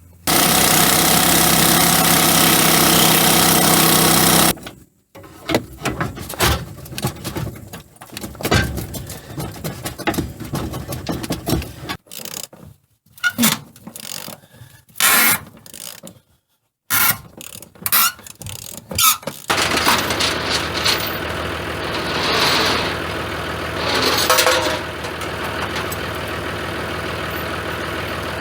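A vehicle engine running, heard in choppy pieces with sudden cuts and short silences through the middle, then running steadily near the end.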